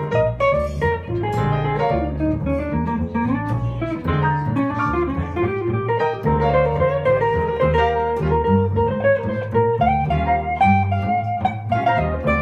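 A small jazz band playing live: a plucked upright double bass under a quick melodic line from a plucked string instrument, with piano.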